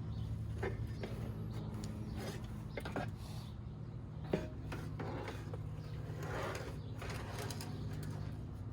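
Scattered light clicks and knocks of hand tools and small parts being handled, with one sharp click about four seconds in, over a steady low hum.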